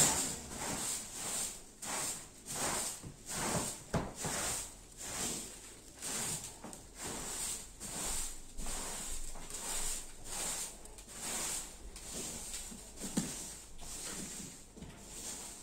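Short-handled hand broom sweeping a carpet: a steady run of brisk swishes, about two strokes a second, growing fainter near the end.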